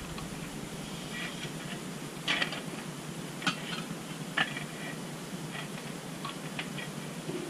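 Light clinks and knocks of small hard objects being handled, like cookware or utensils, with three louder ones about two, three and a half and four and a half seconds in, over a steady background hiss.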